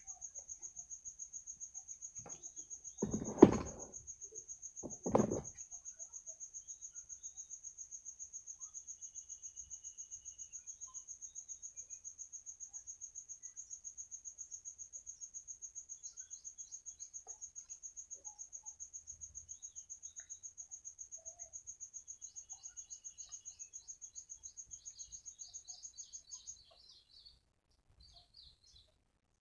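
An insect trilling steadily in a fast, even pulse, high in pitch, then stopping abruptly near the end. Two loud thumps come a few seconds in, and faint bird chirps start in the last few seconds.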